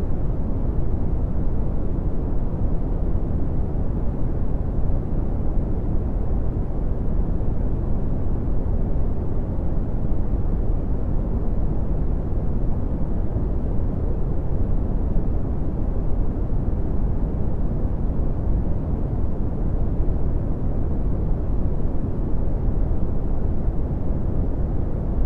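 Red (Brownian) noise: a steady, deep rushing hiss, strongest in the bass and falling off steeply toward the treble, with no changes.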